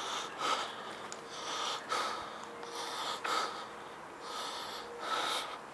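Breathing close to the microphone: a series of short, airy puffs, about one a second.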